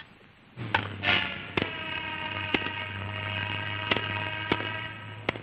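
Old film soundtrack noise: a steady hum and a held, buzzy tone, broken by sharp clicks about once a second.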